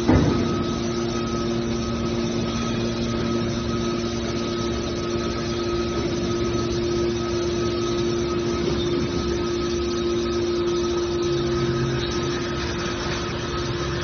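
Hydraulic metal baler's power unit running with a steady hum made of several held tones, with a single knock at the very start.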